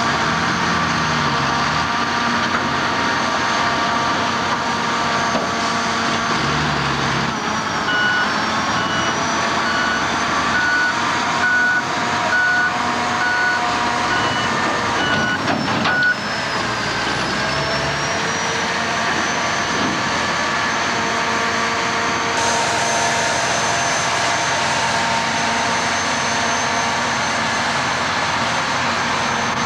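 Diesel engines of a crawler bulldozer and AEC Mercury tipper lorries running steadily on an earthmoving site. A reversing alarm beeps regularly, about once every 0.7 s, from about eight seconds in for roughly eight seconds.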